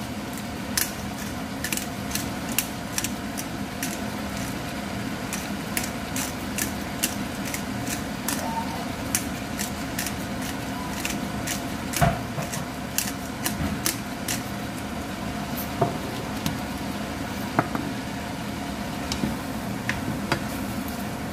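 Shrimp and vegetables sizzling in a nonstick frying pan over a steady mechanical hum, with frequent sharp clicks and taps as pepper is shaken in and the food is stirred with a spatula; one louder knock comes about halfway through.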